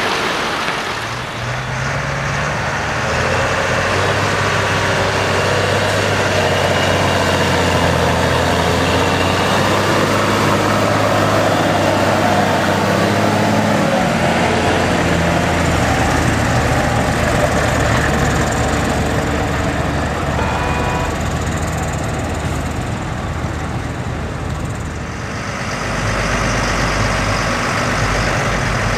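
Heavy diesel engines of a farm tractor and a lorry running under load as the tractor tows the lorry through a muddy field. The engine note changes about halfway through and again near the end.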